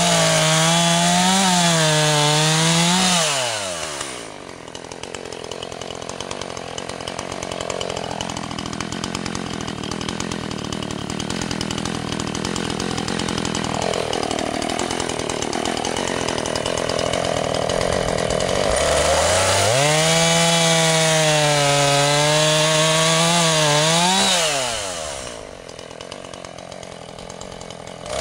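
Husqvarna 445 two-stroke chainsaw cutting through a log at full throttle, then dropping to idle after about three seconds. It idles for about fifteen seconds, revs up and cuts again for about five seconds, falls back to idle, and revs up once more near the end.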